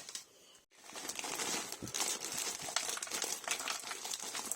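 Plastic food packaging crinkling and rustling as it is handled, starting about a second in as a dense crackle of small clicks.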